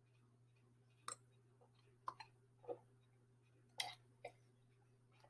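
Near silence broken by about five faint, short clicks and mouth noises: a sip of Black Velvet Canadian whisky being swallowed.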